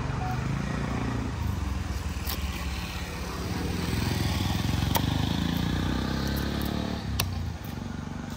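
A motor vehicle's engine passing on the road, growing louder toward the middle and dropping away about seven and a half seconds in. Three sharp clicks of a knife working a tilapia on a wooden chopping block sound over it.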